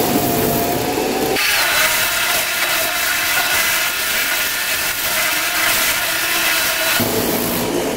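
Kärcher K3 Follow Me electric pressure washer running, its motor and pump giving a steady whine under the hiss of the rotating-nozzle lance's water jet striking a bicycle. About a second and a half in, the sound shifts to a higher, harsher hiss and stays steady until it stops near the end.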